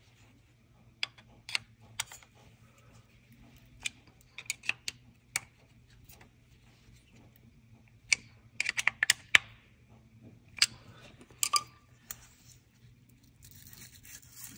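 Scattered small metal clicks and taps as the shims and the cutter head of a counterbore cutting tool are handled and seated on the engine block deck, with a quick run of clicks about eight seconds in.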